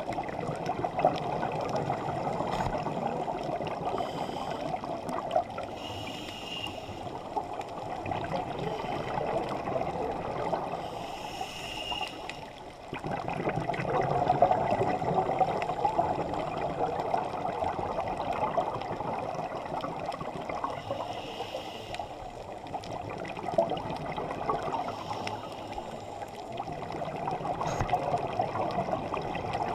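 Muffled underwater bubbling and rushing from a scuba diver's regulator breathing and exhaled bubbles, heard through an action camera's waterproof housing, swelling and easing every several seconds.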